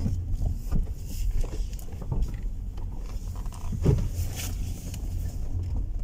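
Toyota Prius (second generation) rolling slowly over a rocky gravel road, heard from inside the cabin: a steady low tyre and road rumble with scattered stone clicks, and one louder knock about four seconds in.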